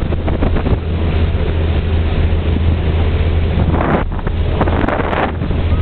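Ferry engines running at speed with a steady low drone, under the rush of the hull's wake and spray and wind buffeting the microphone. Two louder rushes come near the end.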